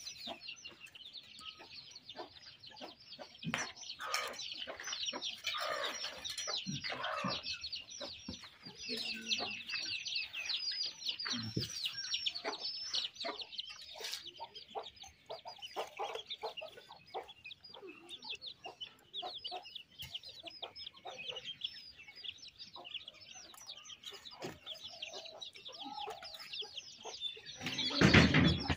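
Chickens clucking, with a steady stream of high-pitched chick peeps throughout. A short, louder noise comes near the end.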